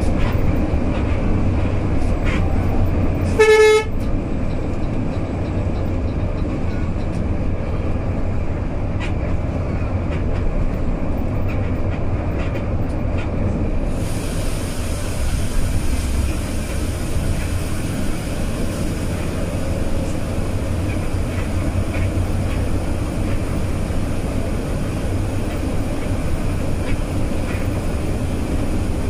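Steady engine and road rumble heard inside a moving bus at highway speed, with one short, loud vehicle horn blast about three and a half seconds in.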